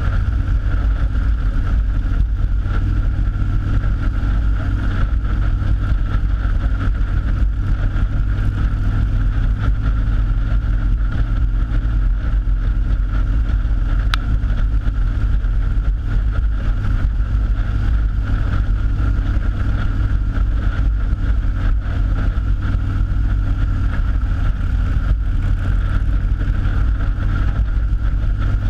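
Motorcycle riding at a steady cruising speed: the engine runs evenly under a constant low rumble of wind over the handlebar-mounted microphone.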